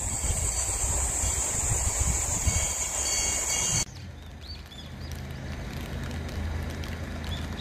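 Outdoor ambience in two parts. First, a steady high-pitched buzz over a low rumble. It drops off suddenly about four seconds in, leaving a quieter background with a low hum and a few brief bird chirps.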